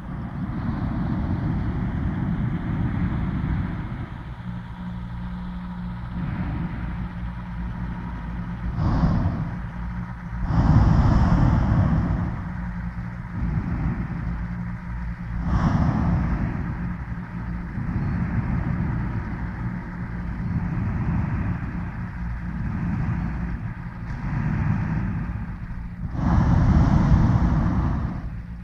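Hot-air airships' propane burners firing in rushing blasts of one to two seconds, several times, the longest in the middle and near the end, over the steady low hum of a running airship engine.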